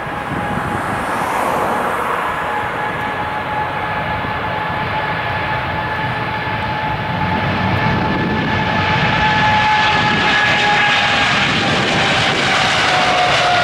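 Boeing 777-300ER's two GE90-115B turbofans at takeoff thrust during the takeoff roll: steady jet engine noise with a high whine of two held tones. It grows steadily louder and hissier as the jet accelerates, and the whine dips slightly in pitch near the end.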